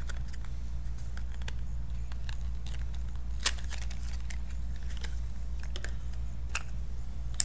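A film box and a plastic film canister being handled and opened by hand: scattered small clicks and rustles, with a sharper click about halfway through and another at the very end, over a steady low hum.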